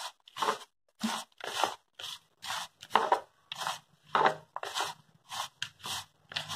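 A hand squeezing and rubbing a coarse, dry mix of ground pearl millet flour, peanuts and jaggery with a little ghee in a plastic bowl: a gritty scrunch about twice a second.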